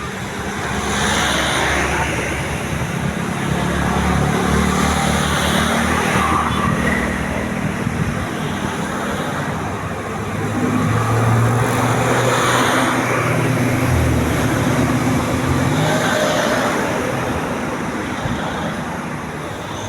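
Large bus engines running past in traffic, a low steady engine drone over road noise that swells twice, a few seconds in and again around the middle.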